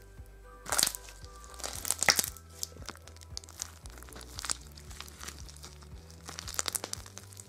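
Thick slime with alphabet letter beads being stretched and squeezed by hand, giving irregular sticky pops and crackles, over faint background music.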